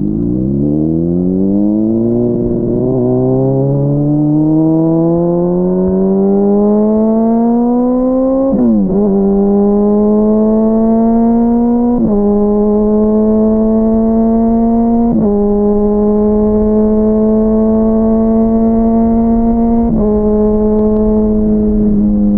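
Honda CBR600RR inline-four engine under way: the revs fall briefly, then climb steadily for about eight seconds under acceleration. The revs then drop sharply and hold fairly steady, with a few brief dips where the throttle eases off. Heard from a microphone inside the rider's backpack.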